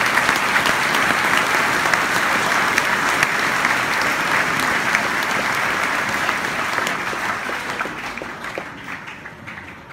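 A large crowd applauding, the clapping thinning and fading away over the last few seconds.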